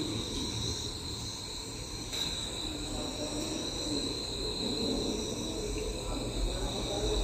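Night insects trilling in a steady, high-pitched chorus, with a faint low murmur beneath.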